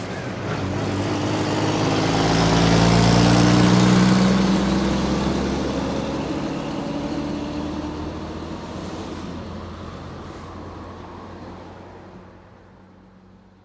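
Large truck's engine and road noise growing louder to a peak about four seconds in, then dropping slightly in pitch and fading steadily away as the truck drives off, until it is almost gone at the end.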